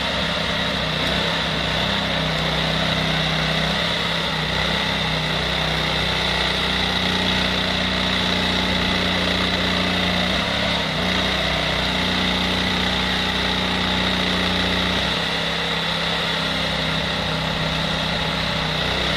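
Kenworth truck's diesel engine running steadily, powering the hydraulics of a truck-mounted Hiab knuckle-boom crane as the boom is moved. The steady hum wavers in pitch about ten seconds in and changes again around fifteen seconds in, as the crane's load on the engine shifts.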